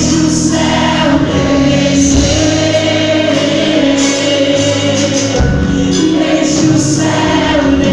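Live Christian worship music: a woman singing into a microphone, backed by a band with drums and guitar.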